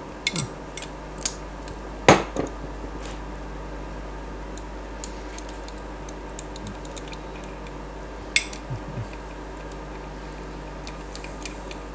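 Metal clinks and clicks of a ring spanner against the cylinder base bolts and cylinders of a water-cooled Rotax engine as the bolts are undone. The clicks are scattered, with the loudest about two seconds in and another about eight and a half seconds in.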